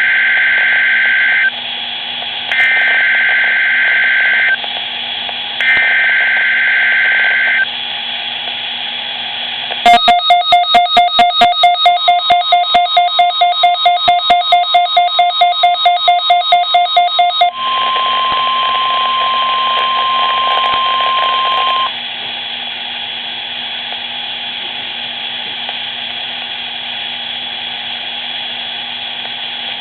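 Weather radio alert sequence on a Midland WR-120EZ. First come three warbling data bursts of the SAME alert header, each about two seconds long. Then the radio's alert beeps fast and evenly, about four times a second, for some seven seconds, followed by the weather service's steady single-pitch warning alarm tone for about four seconds, which drops to a low static hiss.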